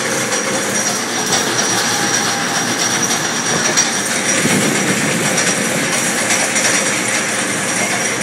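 Steel roller coaster train running along its track: a steady, even noise of the wheels on the rails, with faint clicks here and there.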